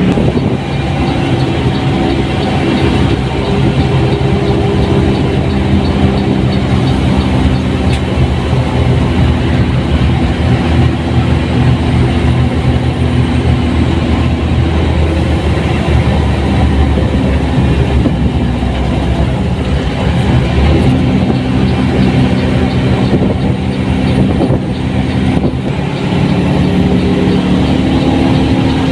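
Front-mounted diesel engine of a Mercedes-Benz 1623 bus running under way. Its note drops about a second in, then holds and shifts in pitch with the engine speed, and dips again a few seconds before the end.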